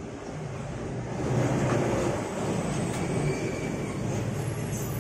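A steady low mechanical hum with a rushing noise over it, growing louder about a second and a half in.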